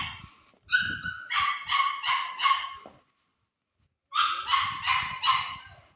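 Puppy barking in quick, high-pitched yips. Two runs of barks, about four or five each, come a second or so apart.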